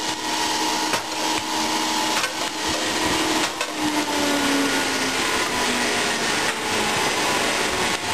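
Motor-driven stone-splitting press for stone and marble running: a loud, steady whirring drone with a few sharp knocks, its hum falling in pitch around the middle.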